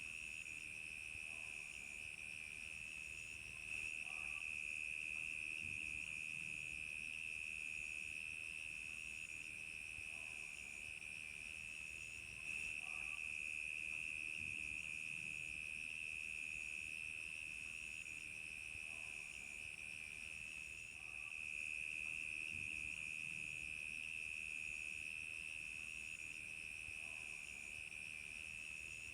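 Crickets chirping in a dense, steady chorus, a high continuous trill with a fainter, higher chirp repeating about once a second above it.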